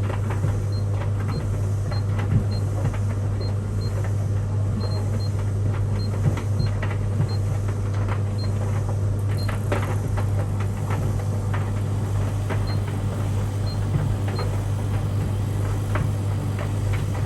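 Tumble dryer running with a steady low hum. Over it, short high beeps sound one after another from a Beko Aquatech washing machine's control panel as programs and options are selected, along with faint clicks.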